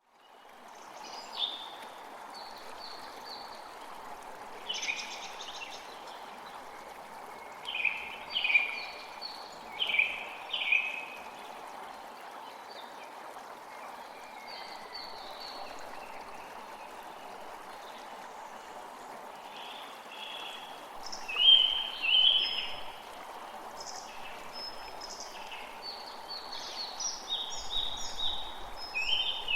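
Steady rain falling, a continuous even patter, with birds chirping in short repeated phrases over it, loudest around a third of the way in and again past the two-thirds mark.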